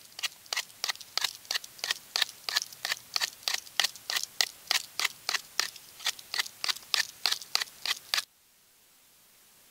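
Knife blade whittling a wooden stick to a point, making quick scraping shaving strokes about three a second. The strokes stop suddenly near the end.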